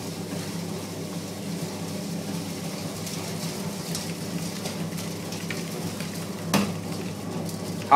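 Small detergent shear-granulator machine running with a steady electric-motor hum while freshly sheared detergent granules pour from its chute into a plastic bucket with a soft hiss. A single knock near the end.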